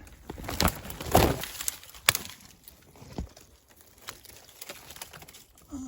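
Twigs and leafy branches rustling and snapping as they are pushed aside to reach a nest, with a few sharp cracks in the first two seconds, the loudest about two seconds in, then softer rustling.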